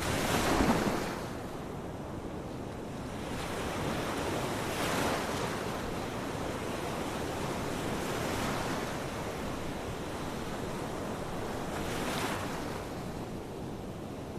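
Ocean waves breaking on a shore as a steady wash of surf. The loudest wave crashes right at the start, and further waves swell and break about every three to four seconds.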